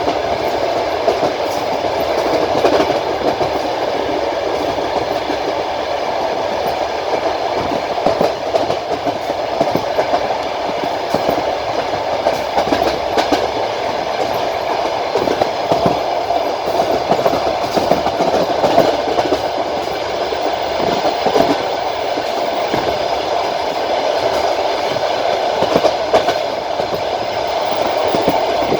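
Passenger train running at speed, heard from inside a carriage: a steady rumble with the wheels clattering over the rails in irregular knocks.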